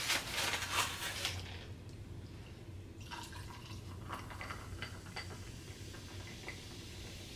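Banana-flavoured drink poured from a bottle into a glass of ice: a fading hiss in the first second and a half, then faint trickling liquid with small ice clicks.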